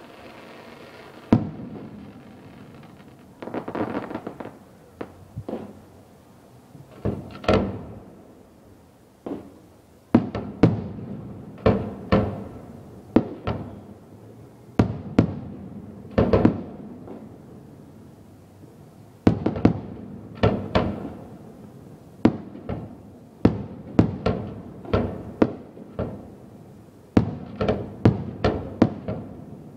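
Aerial firework shells bursting in a display: sharp echoing bangs, a few spaced out at first, then coming thick and fast in rapid clusters through most of the rest.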